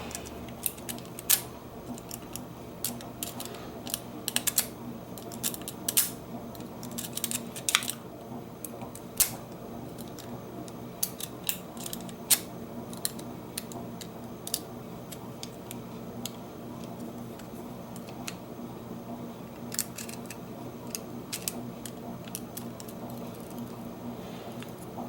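A lock pick raking and clicking against the rotating discs inside a Bunker Hill disc padlock, in irregular bursts of small sharp metallic clicks, with a faint steady hum underneath.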